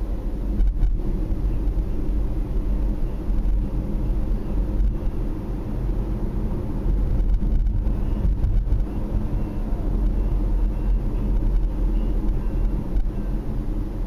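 Steady low rumble of a car driving along a road, heard from inside the cabin.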